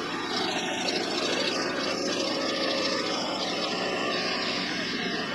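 Vevor MX400 mini lathe running steadily through a facing cut on an aluminum workpiece: a constant motor and spindle drone with a thin high whine.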